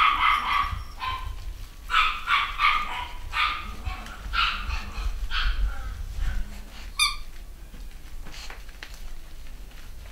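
Cavachon puppies yapping and barking in play, short high calls in quick runs through the first six seconds. One sharp high squeak about seven seconds in, after which the yapping stops.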